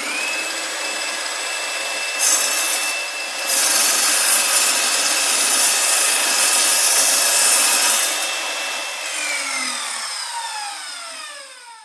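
A high-speed power tool spins up to a steady high whine and works material with a loud rasping hiss, heaviest through the middle. Its whine then falls away as it spins down over the last few seconds.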